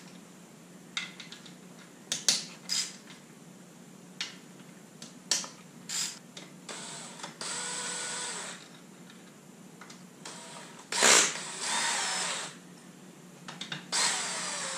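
Cordless drill spinning out the three oil pump bolts of a VQ37VHR engine in three runs of a second or two each: the first about halfway through, the other two near the end. Light clinks of tools and metal parts come before them.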